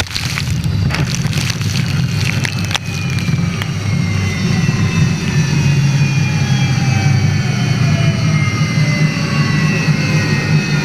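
Onboard sound of an unlimited hydroplane's gas-turbine engine: a loud, steady low drone under high whines that slowly fall in pitch from about four seconds in. Several sharp knocks come in the first three seconds.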